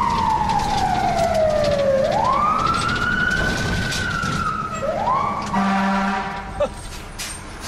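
Fire engine's siren heard from inside the cab: the wail slides slowly down in pitch, sweeps quickly back up and slides down again, then rises once more. About five and a half seconds in it gives way to a short, low horn blast, after which the cab is quieter.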